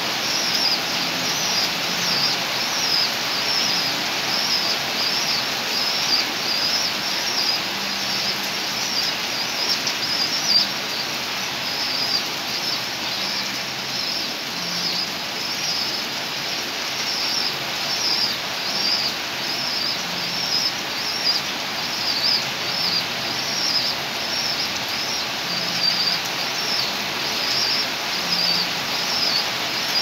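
Steady rain falling, a continuous even hiss, with a bird chirping over and over in quick, high notes.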